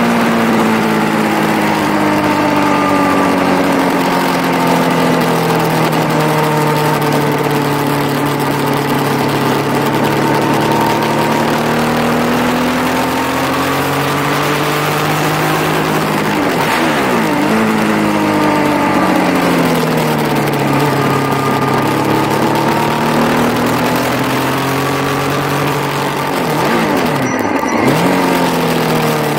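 Yamaha motorcycle engine running hard around a track, its pitch sweeping down and up as the revs change through corners, with quick sharp drops and rises about halfway and again near the end. A steady rush of wind runs under it.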